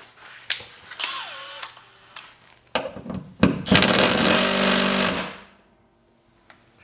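Cordless impact driver with a T50 Torx bit hammering on a Jeep Wrangler's door hinge bolts: a short burst about a second in, then a longer rattling burst that stops suddenly.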